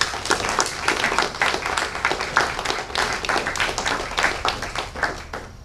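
Audience applauding, many hands clapping in a dense patter that dies away near the end.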